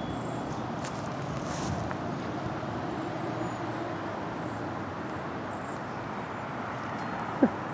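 Steady outdoor rumble of distant road traffic. Near the end, one short, sharp sound slides down in pitch.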